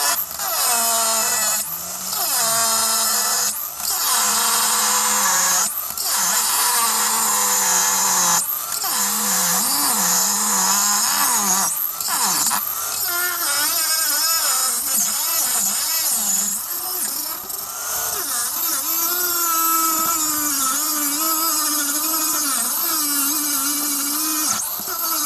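A power tool cutting through the Discovery 2's rotten rear chassis steel along the marked cut line. Its motor whines high, the pitch dropping and rising as it loads up in the cut, with short breaks several times.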